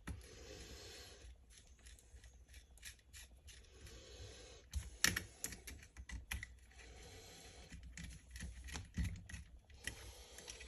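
Irregular light clicks and taps of small tools and metal parts being handled while reassembling an RC truck's differential case, with a few brief scrapes.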